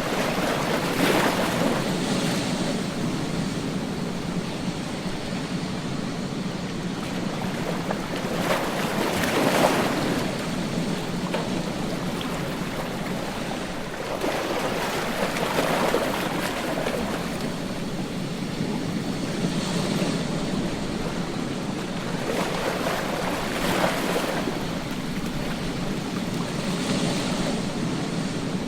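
Ocean surf on a beach: waves breaking and washing in, swelling every four to eight seconds over a constant rush of water.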